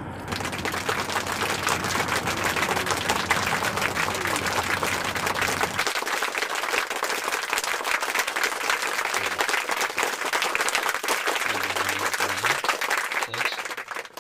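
Applause: a dense, steady crackle of many hands clapping that starts abruptly and cuts off at the end.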